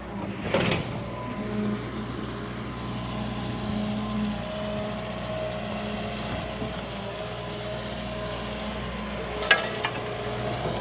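Large excavator's diesel engine running steadily under work, with a sharp knock just after the start and a louder one near the end.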